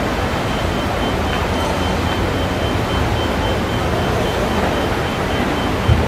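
Steady rushing outdoor background noise with a low rumble and a faint thin high tone, and a short knock near the end.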